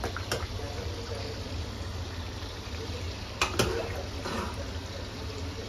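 Mutton karahi curry simmering and bubbling in a karahi wok over a steady low hum, with two sharp clinks about three and a half seconds in.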